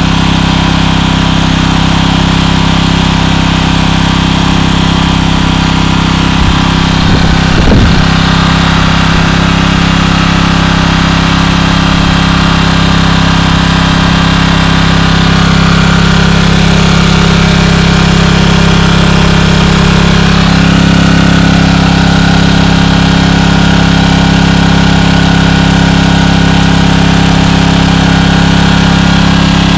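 Generac 4000 W portable generator's engine running steadily at constant speed, with a brief knock about seven seconds in and a slight shift in its tone about twenty seconds in.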